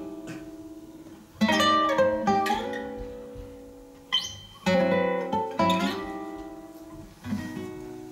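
Nylon-string classical guitar playing the instrumental introduction to a song: strummed and plucked chords, each struck sharply and left to ring and fade before the next.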